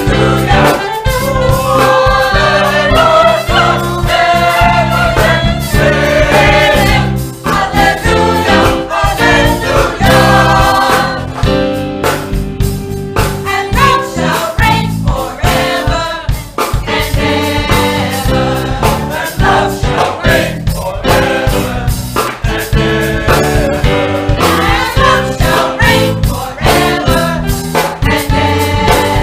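A gospel choir singing with instrumental accompaniment and a steady beat.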